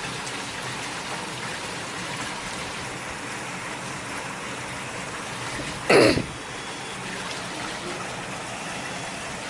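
Heavy storm rain falling as a steady hiss, with one short loud burst about six seconds in.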